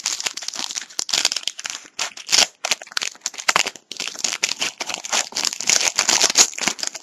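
Trading card pack wrapper being torn open and crinkled by hand, a dense crackling with short pauses, as the cards are pulled out.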